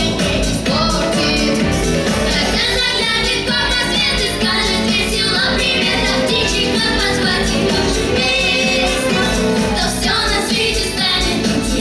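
Vocal trio singing a pop song over an instrumental backing track with a steady beat.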